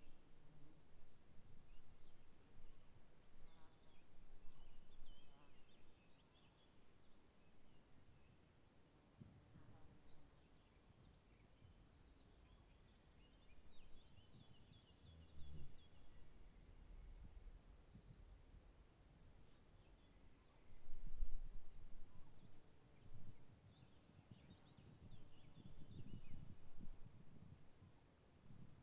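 Insects chirring in one steady, high, unbroken trill. Wind buffets the microphone in low gusts, the strongest about two-thirds of the way in.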